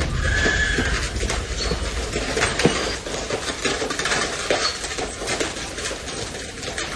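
Horse-drawn cart moving at a walk: irregular hoofbeats with knocks and rattles from the cart, and a brief high squeal about half a second in.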